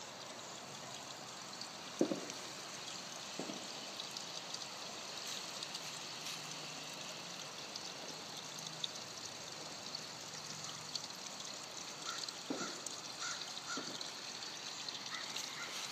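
Garden pond water feature trickling steadily, with a few faint knocks.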